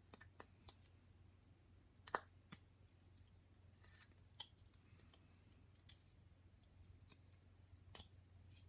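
Carving knife cutting small chips from a wooden figure: sparse, faint snicks of the blade through the wood, the loudest about two seconds in, over a low steady hum.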